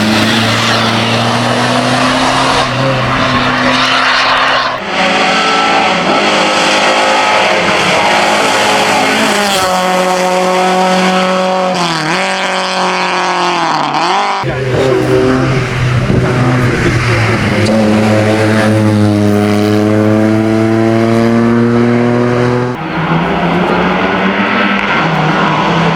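Hillclimb race car engine running hard under load, its pitch climbing and falling with the throttle, with sudden pitch changes at gear shifts a few times.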